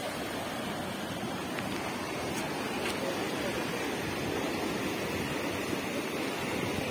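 Rain-swollen stream of muddy floodwater rushing over a low concrete crossing: a steady, even rush of water.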